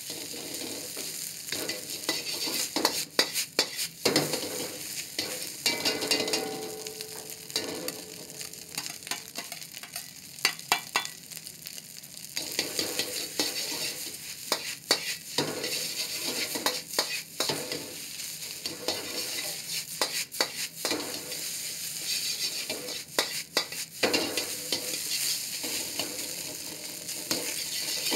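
Fried rice sizzling in a wok while a metal ladle scrapes and clacks against the pan. The steady hiss of frying is broken every few seconds by quick runs of sharp ladle strikes as the rice is stirred and broken up.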